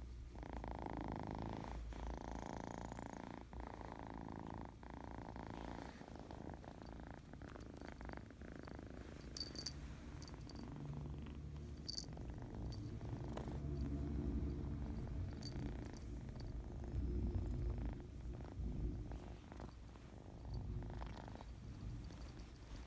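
Kitten purring steadily in a continuous low rumble, with a few faint clicks about ten seconds in.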